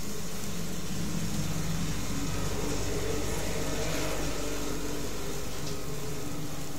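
A woman snoring in her sleep, a low rasping drone that swells and fades over several seconds, over a steady hum.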